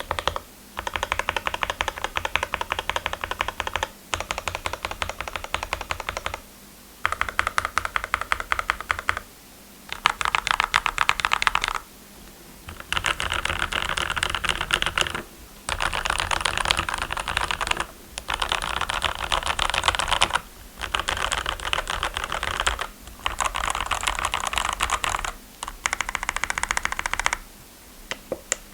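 Typing on a GMMK Pro 75% mechanical keyboard with lubed Gateron Milky Yellow linear switches, filmed switches and Akko Silent Cherry-profile PBT keycaps. The keys clack in quick runs of a few seconds each, with short pauses between the runs.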